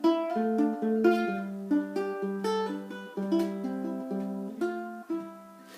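Solo plucked string instrument fingerpicking an instrumental introduction: single notes picked one after another, about three a second, each ringing briefly before the next, with no bass notes underneath.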